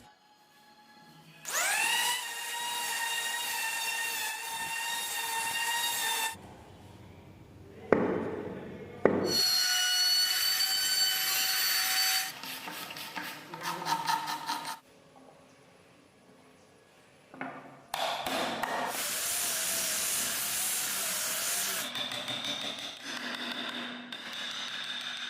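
Handheld electric power tools working wood in several separate runs. Each run starts as the motor spins up with a rising whine, then holds a steady high whine over a rough grinding noise, which wavers in pitch while the tool bites into the wood.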